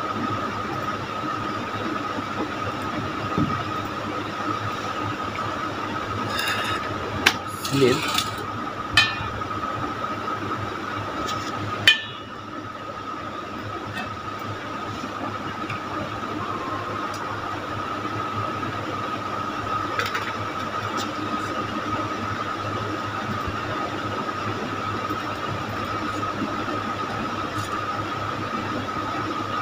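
Steady background hum with a constant high-pitched whine, broken by a few short clicks or clinks about six to nine seconds in and one sharp click about twelve seconds in.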